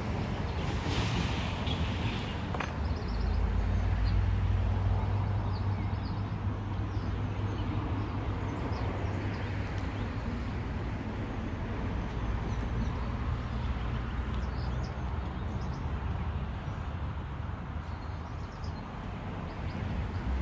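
Honeybees buzzing around an open, crowded hive, over a steady low rumble, with a few faint high chirps now and then.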